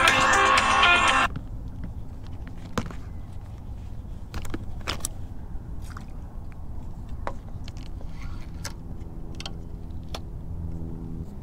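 Background music cuts off about a second in. Then comes the handling of a fishing rod and baitcasting reel: scattered sharp clicks and taps over a steady low rumble, with a steady low hum near the end.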